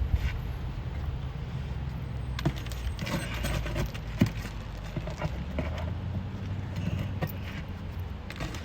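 Scattered small clicks, knocks and crackles of brittle fiberglass asphalt shingles being lifted by hand, over a steady low rumble.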